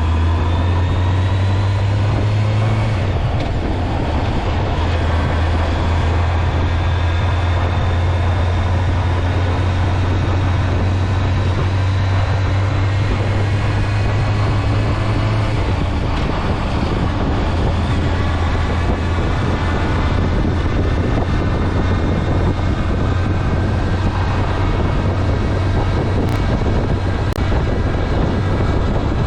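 Honda Nighthawk 750's inline-four engine running under way, its pitch rising for the first few seconds and then holding at a steady cruise, with road and wind noise.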